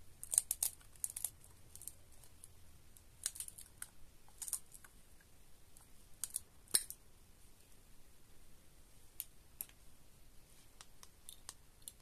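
Scattered sharp clicks and taps from a glass perfume bottle and its red cap being handled and worked apart, some in quick little clusters.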